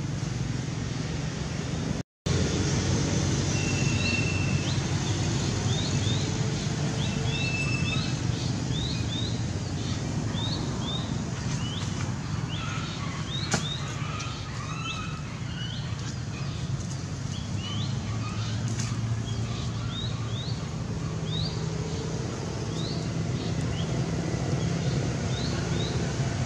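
Birds chirping: short, hooked high notes repeated in quick runs, sometimes several a second, over a steady low rumble of background noise. The sound cuts out for an instant about two seconds in.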